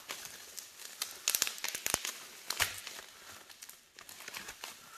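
Plastic bubble wrap crinkling and rustling as it is unwrapped from a phone by hand, with irregular crackles that are busiest in the middle.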